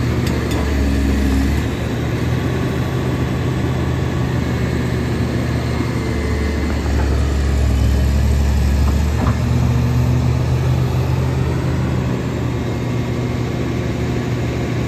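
Komatsu PC350 excavator's diesel engine running, a deep steady note that grows a little louder about six seconds in.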